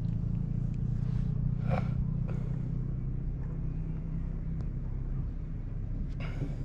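Low, steady engine hum that fades away about five seconds in.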